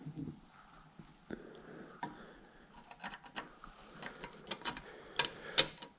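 Light metallic clicks and ticks of a Yamaha RD50's steering head bearing parts, the loose steel balls and bearing races, being seated by hand in the top of the frame's head tube, with two sharper clicks near the end.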